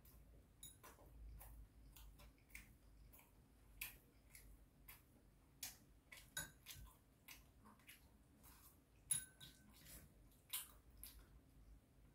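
Faint, irregular clicks of a metal spoon and chopsticks against a ceramic rice bowl while eating, with one sharper ringing clink about three-quarters of the way through.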